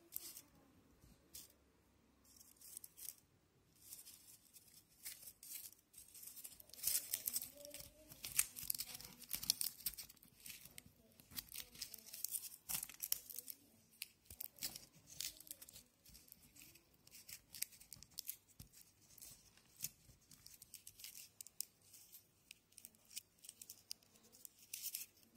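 Aluminium foil crinkling and crackling as hands crumple it and press it tightly around a cotton swab, in irregular bursts that are heaviest through the middle.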